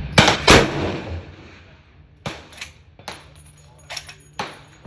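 Rifle shots on a shooting range: two loud shots in quick succession near the start, each trailing off in an echo, then about five fainter shots spread over the next few seconds.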